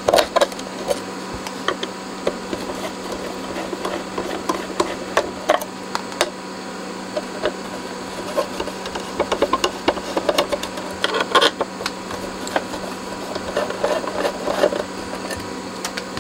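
Hand screwdriver turning out the small screws in the metal top cover of an effects unit: scattered small clicks and scrapes, busiest in the second half, over a steady low electrical hum.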